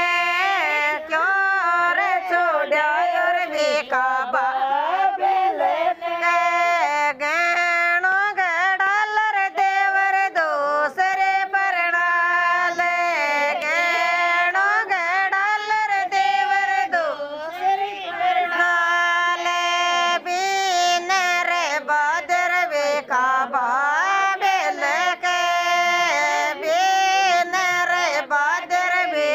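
Women singing a Rajasthani jawai geet, a folk song for a son-in-law, together on one melody line, with short sharp clicks running through it.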